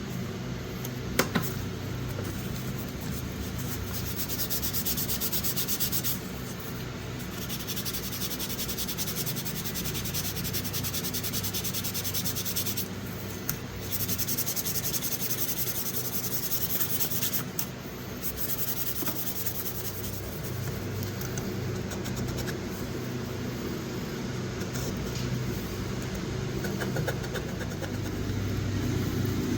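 Sandpaper rubbed by hand on a steel pocket-knife blade in quick back-and-forth strokes, stopping briefly three times. Two sharp clicks about a second in.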